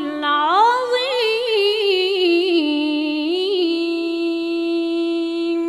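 A woman's solo voice chanting in Quranic recitation style, the drawn-out closing cadence of the recitation: an ornamented melodic run that settles into one long held note near the end.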